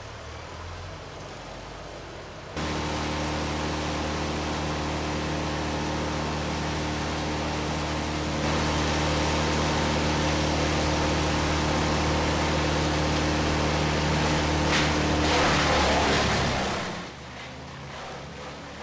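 An engine running at a steady speed, a constant low hum over a noisy rush. It cuts in abruptly about two and a half seconds in, gets louder around eight seconds, and fades out about seventeen seconds in.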